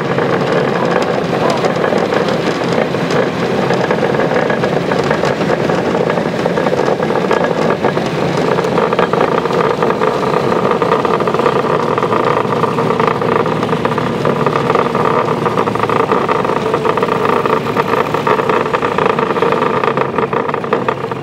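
Engine of a miniature railway locomotive running steadily as the train moves along.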